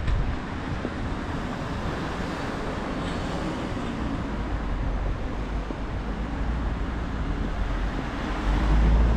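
Street traffic passing: a steady hum of road noise, with a vehicle's low rumble growing louder near the end.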